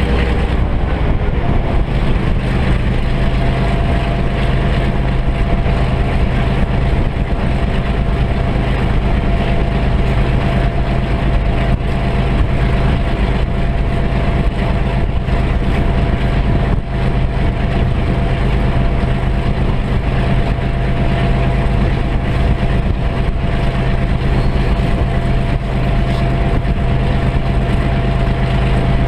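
NZR Da class diesel-electric locomotive's EMD 567 two-stroke diesel engine running steadily under power as the locomotive travels. A steady whine comes in a few seconds in.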